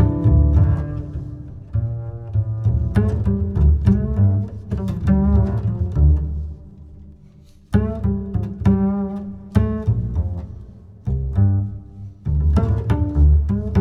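Background music of low, deep string-like notes that start sharply and die away, with a short lull about halfway through before the notes resume.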